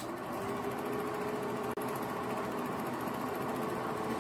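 8mm film projector running with a steady mechanical clatter and motor hum, the hum rising slightly in pitch at the start as the motor comes up to speed after being switched on. The sound drops out very briefly nearly two seconds in.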